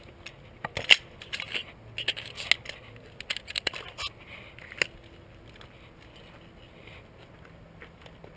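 Sharp clicks and clacks of a handgun being handled as it is loaded and made ready, the loudest about a second in, with more over the next few seconds, then quiet handling noise.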